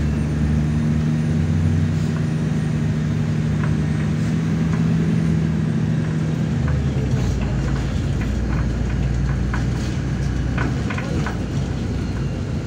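MAZ-103 city bus heard from inside the cabin while under way: a steady engine drone with road noise. The engine note shifts lower about six and a half seconds in, and short clicks and rattles come through now and then.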